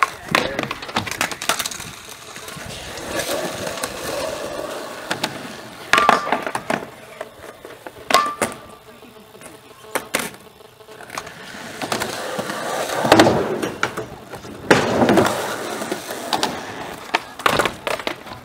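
Skateboard wheels rolling on concrete, broken several times by the sharp clack of a board popping and landing.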